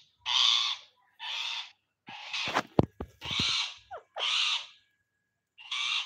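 Rose-ringed (Indian ringneck) parakeet giving harsh, screechy squawks, about six calls roughly one a second. A few sharp clicks come near the middle.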